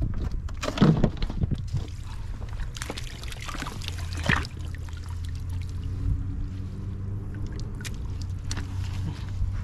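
Water splashing and pouring off a long-handled crab landing net as it is scooped through shallow water and lifted, with a few knocks in the first second and a half. A steady low hum runs underneath.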